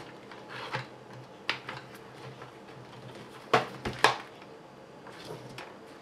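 Hard plastic parts of an Axial Wraith RC truck clicking and knocking as the body is worked onto the chassis, with two sharp clicks close together about three and a half and four seconds in.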